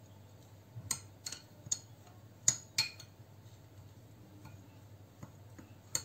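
A metal spoon stirring a dry, crumbly egg-food mix in a glass dish, clinking against the glass in a handful of short, sharp ticks scattered through the stirring, the loudest about two and a half seconds in.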